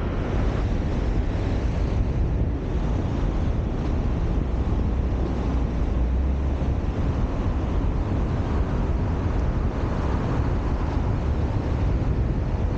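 Steady wind noise on the microphone over the road noise of a vehicle driving, deepest at the low end, with no distinct events.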